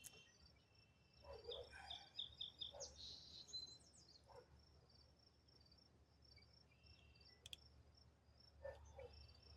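Faint crickets chirping in a steady high pulsing trill, with a few soft handling rustles and clicks between about one and four seconds in and a single sharp tick later on.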